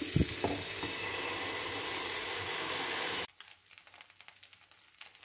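Oats dosa batter sizzling on a hot iron tawa as it is ladled and spread: a steady hiss, with a soft knock of the ladle right at the start. About three seconds in the hiss cuts off sharply, leaving only faint crackling.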